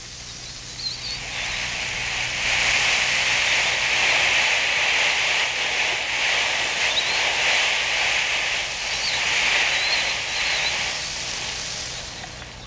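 Strong wind driving sand over a dune crest, a steady hiss that swells about two seconds in and eases off near the end.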